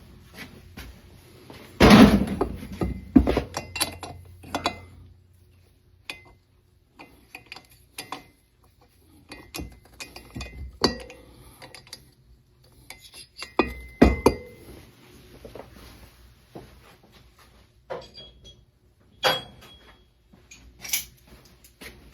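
Metal hand tools and engine parts clinking and knocking irregularly on a workbench, with a heavy clunk about two seconds in and another around fourteen seconds.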